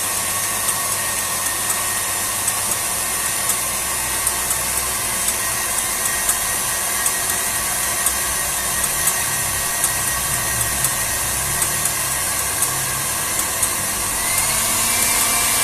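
KitchenAid Heavy Duty stand mixer running steadily, its wire whisk whipping plant-based egg whites in the steel bowl, with faint light ticks throughout. Near the end its pitch rises and it gets a little louder.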